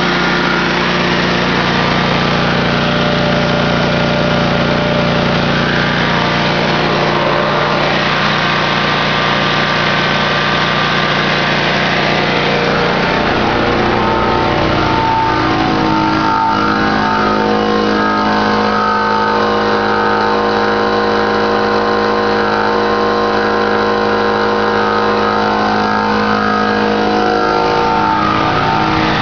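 Honda 20 hp V-twin engine running steadily as it drives a generator head. About 13 seconds in, its low note shifts and settles into a steadier tone.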